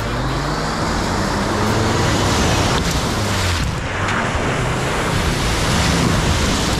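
Four-wheel-drive vehicle's engine working, its pitch rising and falling, under a loud, steady rush of noise from wind and tyres.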